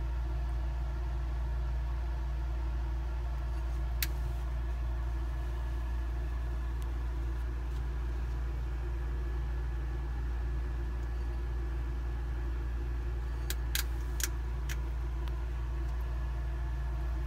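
Steady low electrical hum with a few sharp clicks over it: an Egyptian uromastyx crunching dry red lentils. There is one click about four seconds in and a quick run of about five near the end.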